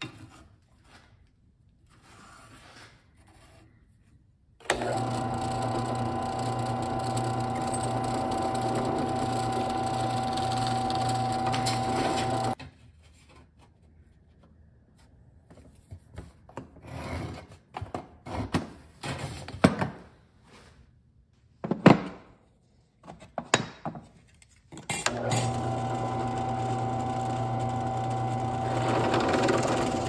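Bench drill press motor running steadily with a steady hum for about eight seconds, starting about five seconds in, as a bit drills through a wooden knife handle scale. Then scratching and handling of thin brass sheet on the workbench, with a few sharp clicks, before the drill press starts up again near the end.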